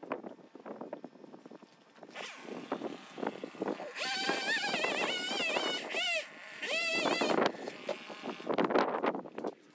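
Chainsaw starting up about two seconds in, then running hard with its pitch wavering under load as it cuts into the queen palm's trunk. It eases off briefly and revs up again near the end.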